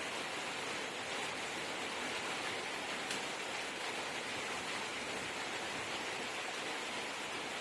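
Steady, even hiss with no distinct events, apart from one faint tick about three seconds in.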